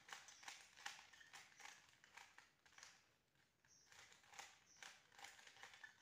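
Faint clicking and clacking of a plastic 3x3 Rubik's cube as its layers are turned by hand, about three clicks a second with a short lull about halfway.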